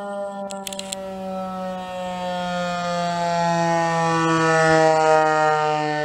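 ASC T-128 rotating electromechanical outdoor warning siren sounding a low growl, its pitch slowly falling as it winds down. It swells louder toward about five seconds in and then eases off as the rotating head sweeps past.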